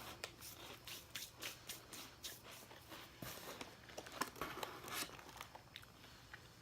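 Faint, irregular crunching of crisp mini pizza crackers being chewed, a few crunches a second, dying away about a second before the end.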